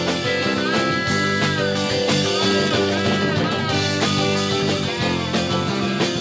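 Live rock band playing an instrumental passage on electric guitars, keyboard, bass and drum kit, with a lead line holding long notes that bend up and down in pitch.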